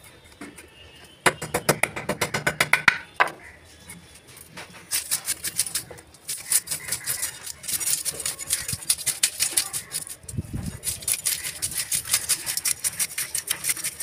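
Bhetki fish being scaled on a boti blade: quick rasping scrapes, several a second, as the scales are stripped off. A short burst of strokes about a second in, a pause, then steady scraping for most of the rest.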